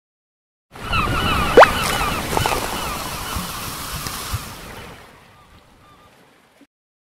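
Beach ambience sound effect: surf and wind with repeated chirping bird calls, and a quick rising whoosh about a second and a half in as the loudest moment. It fades away over the last few seconds.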